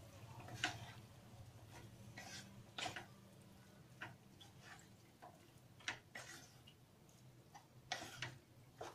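Wooden spatula stirring boiled pasta into tomato sauce in a pan: faint, irregular scrapes and taps of the spatula against the pan, over a low steady hum.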